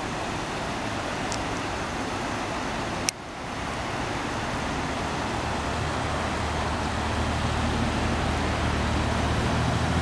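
Floodwater rushing across and alongside a road: a steady rushing noise that grows louder and deeper toward the end. A single sharp click comes about three seconds in.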